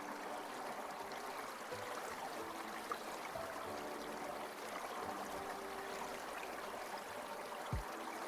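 A water stream flowing and trickling steadily, with soft, quiet background music notes over it and a brief low thump near the end.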